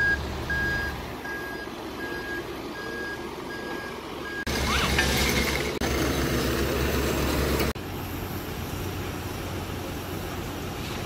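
A backhoe loader's backup alarm beeping steadily, about one and a half beeps a second, over its diesel engine running. About four and a half seconds in, this cuts abruptly to the louder engine of a Takeuchi TL8 compact track loader running for about three seconds, followed by quieter outdoor background noise.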